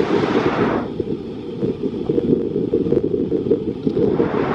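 Wind buffeting the microphone, a dense low rumble; a higher hiss above it drops away about a second in and comes back near the end.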